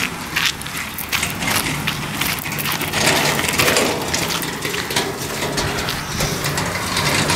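Footsteps crunching on a gravel path and grass, steps in quick succession with crackly rustling.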